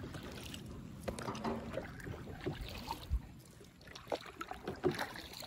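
Double-bladed kayak paddle stroking through calm water, with faint splashing and dripping and a few light knocks.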